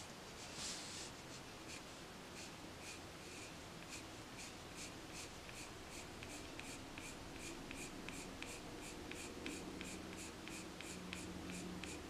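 Prismacolor colored pencil scratching on paper in a steady run of short strokes, about three a second.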